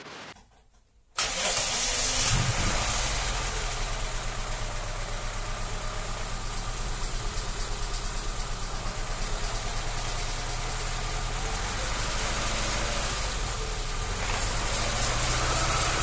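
ZAZ Tavria's four-cylinder petrol engine running steadily; it cuts in abruptly about a second in.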